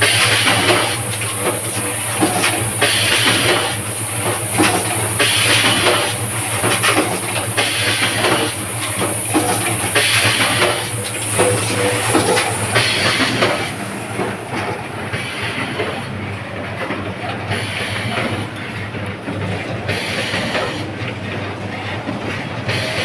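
Automatic wire harness crimping and connector insert plugging machine running through its cycle: repeated short bursts of pneumatic hiss and mechanical clacking over a steady low hum. A high hiss fades out about two-thirds of the way through.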